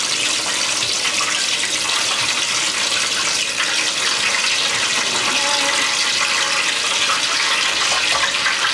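Whole garlic cloves frying in hot oil in a wok: a steady sizzling hiss as the garlic infuses the oil.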